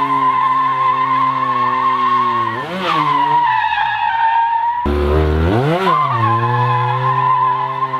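Mazda RX-7's two-rotor rotary engine held at high revs while the car drifts, its tires squealing in a steady high tone. The revs rise and fall about three seconds in and the engine eases off. Just before five seconds the sound cuts abruptly to another pass, with the engine revving up and settling again.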